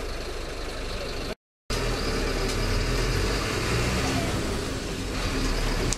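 Mascarello Gran Via city bus's engine running, heard from inside the cabin as the bus pulls away. The sound cuts out briefly about a second and a half in, and after that the low engine rumble is louder.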